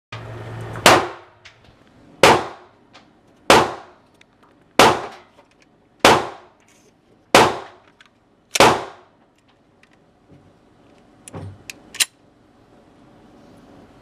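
Seven gunshots fired at a steady pace, about one every second and a quarter, followed by a few smaller sharp clicks about three seconds later.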